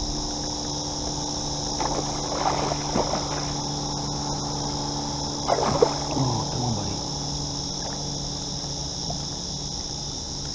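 Water splashing as a landing net is swept at a hooked flathead thrashing at the surface: smaller splashes about two seconds in, and the loudest splash about five and a half seconds in. A steady high insect drone runs underneath.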